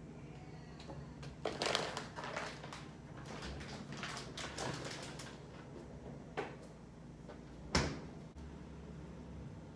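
Refrigerator door opened, with rustling and clatter of items being handled. A sharp thump near the end as the door is pushed shut.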